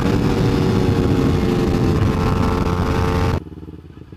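Kawasaki Ninja 250's parallel-twin engine running hard at high revs near 100 mph, with wind rushing on the microphone. About three and a half seconds in, it cuts off abruptly, leaving a much quieter low engine sound.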